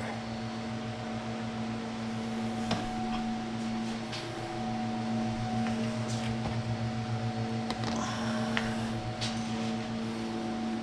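Steady hum of a small running machine, with a few light clicks and knocks over it.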